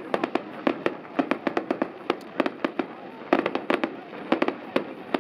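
Aerial fireworks display: shells and stars bursting in rapid, irregular bangs, several a second, over a continuous noisy background between the reports.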